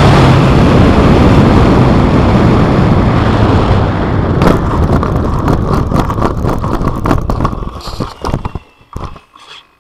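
Onboard audio from a Starmax P-51 Mustang RC model landing on grass. The steady rush of its running propeller and airflow fades as it rolls out. From about halfway, a rapid series of knocks and rattles comes as the airframe bumps over the rough grass, and it dies away near the end as the propeller stops.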